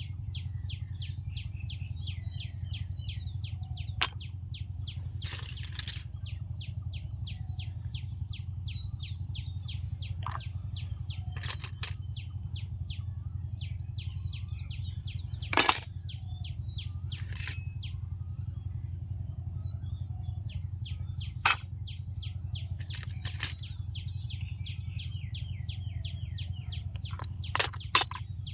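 Small plastic toy pieces clicking and tapping now and then, about nine sharp knocks spread across the stretch. Behind them, rapid high chirping runs on in quick series over a steady low hum.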